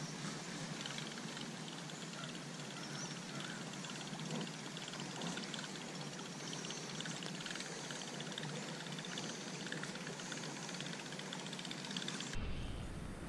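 Steady patter of light rain with the churn of a buzz bait being reeled across the pond's surface. A small splash near the end as a bass strikes the bait.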